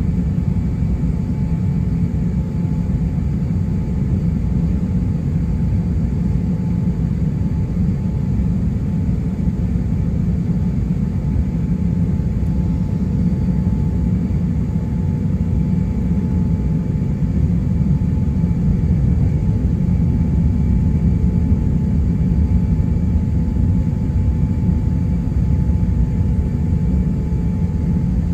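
Cabin noise of an Airbus A350-900 taxiing: a steady low rumble with faint steady whining tones from its Rolls-Royce Trent XWB engines at taxi power.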